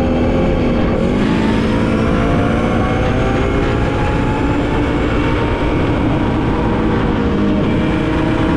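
Quad bike engine running under way. Its pitch dips about a second in, then climbs gradually over a few seconds as it speeds up, and holds steady after that.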